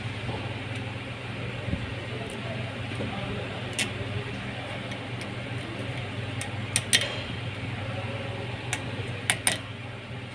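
Light metallic clicks and taps from fitting the brake pad retaining pin and clip into a four-piston brake caliper: one about 4 seconds in, a quick pair near 7 seconds and another pair near 9.5 seconds. A steady low hum runs underneath.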